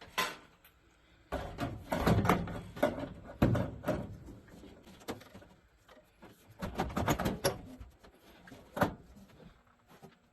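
Metal access door of an HVAC unit being handled and fitted back into place: a run of irregular knocks, clanks and rattles.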